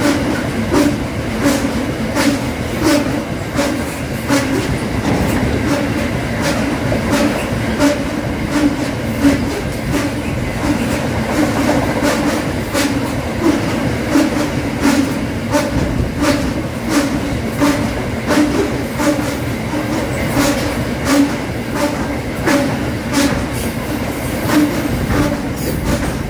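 A freight train's open-top wagons rolling past at speed: a steady wheel-on-rail rumble with frequent sharp clicks and clacks from the wheels.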